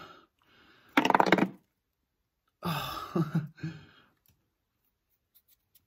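A man's voice making a short breathy sound, then low voice sounds without clear words for a second or so. Near the end only a few faint clicks.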